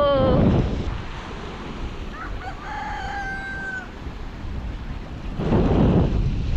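Strong wind buffeting the microphone, with a rooster crowing about two seconds in and ending on a long held note; the wind swells louder near the end.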